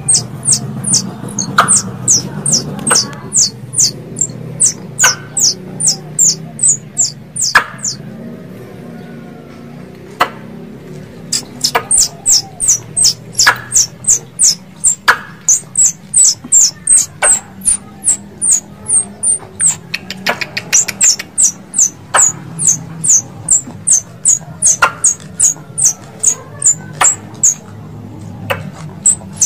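Squirrel calling: a long series of sharp, high-pitched chirps, about three a second, each dipping slightly in pitch. The calls stop for about three seconds near the middle, then resume.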